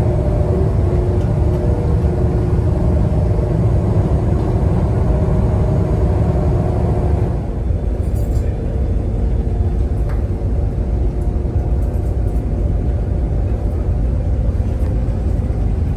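Steady rumble of an ICE high-speed train running at speed, heard from inside the carriage. A faint steady hum over it fades about halfway through, and the rumble eases slightly.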